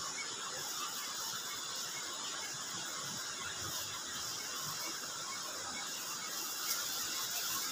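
Steady hiss of a flowing river. A faint high chirp repeats about twice a second over it.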